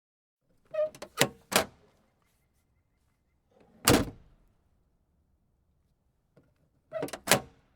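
Car trunk lid being worked: a quick cluster of latch clicks and knocks about a second in, a single heavy thunk as the lid is slammed shut about four seconds in, then another quick cluster of latch clicks and knocks near the end.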